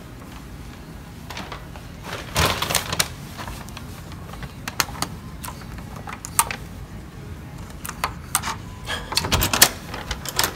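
Scattered sharp clicks and knocks as a hotel room's electronic key-card door lock is worked: the card goes into the slot, the lock clicks, and the lever handle is turned, with the loudest clicks near the end.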